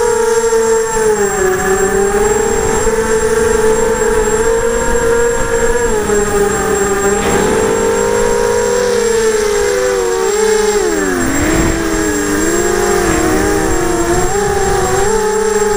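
Electric motors and propellers of a Graupner Alpha 250 racing quadcopter whining, heard from its onboard camera: several close tones that drift apart and together as the throttle changes, dropping sharply in pitch and climbing back about eleven seconds in. Wind rumbles on the microphone underneath.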